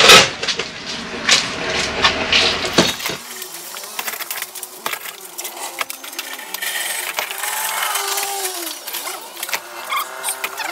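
Clay bricks being set down and stacked by hand on a van floor: repeated sharp clinks and knocks of brick on brick, the loudest right at the start.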